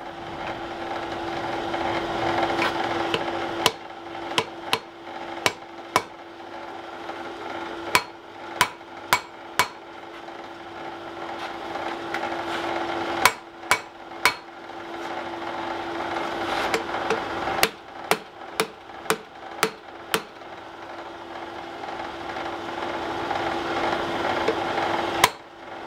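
Hand hammer striking a red-hot wrought-iron bar on an anvil as its end is forged, in short irregular groups of sharp blows with pauses between. A steady hum carries on under the blows.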